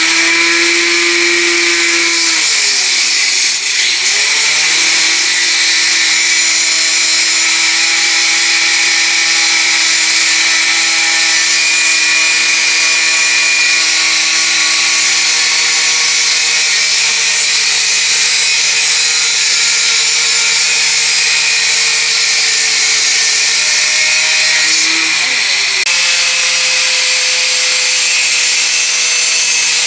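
Handheld angle grinder cutting into metal tubing: the motor runs steadily at high speed over a hissing grind. Its pitch sags and recovers about three seconds in and again near 25 seconds, as the disc is loaded into the cut or the trigger is let off and squeezed again.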